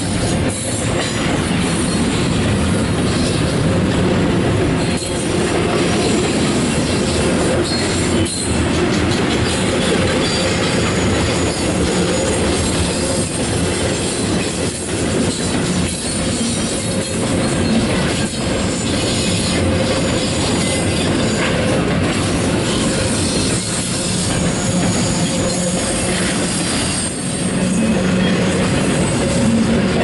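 Double-stack intermodal container cars rolling past: a loud, steady rumble of steel wheels on rail, with a thin steady ringing tone over it and an occasional click.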